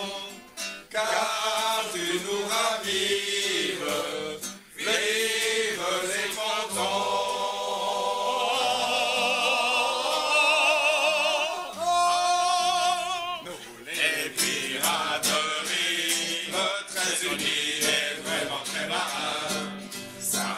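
Men's voices singing a song together, with long held notes sung with vibrato about halfway through.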